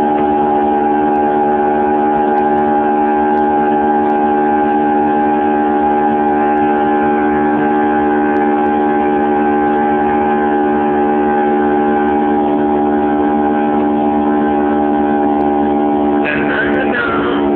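A steady drone of several held tones sounding together, unchanging for about sixteen seconds. Near the end a second sound with wavering pitch joins it.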